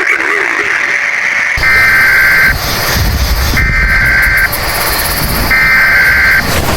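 Emergency Alert System SAME header: three bursts of buzzing digital data tones, each about a second long and about a second apart, over a low noisy rumble. The header marks the start of an emergency alert broadcast.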